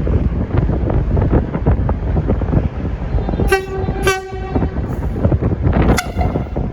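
V/Line VLocity diesel railcar sounding its low-note horn in three blasts, the middle one the longest, starting about halfway through. Under the horn, the train rumbles and its wheels clatter as it pulls out.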